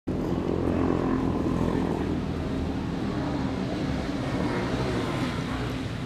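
Engine of a motorboat out on the water, droning steadily, its pitch sinking a little over the first two seconds.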